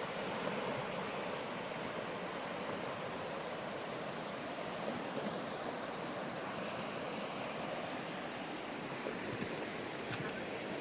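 River water rushing below a footbridge, a steady, even noise without breaks.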